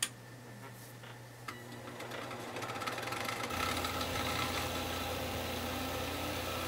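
Fidget spinner converted into a brushless motor spinning up: a click, then a whirring hum that rises in pitch and loudness over about two seconds and settles into a steady whir at a little over 5,000 RPM.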